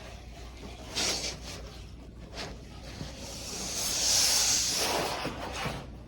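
Swishing and rustling of a pasted wallpaper mural sheet being handled. There is a short swish about a second in, and a longer, louder one from about three to five seconds in.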